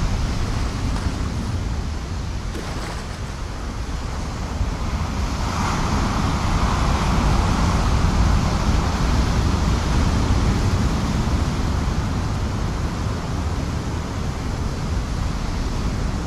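Ocean surf washing against the coast, with wind rumbling on the microphone. The surf swells up about a third of the way in and eases again.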